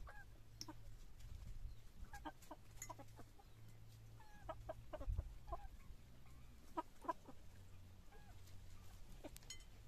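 Chickens clucking in short, scattered calls, with a few light clicks and a low rumble underneath.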